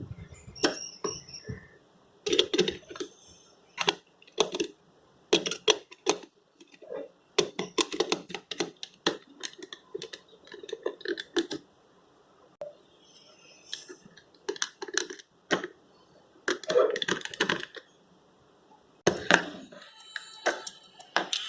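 Irregular clicks, taps and knocks of small hard plastic parts being handled, coming in uneven clusters throughout.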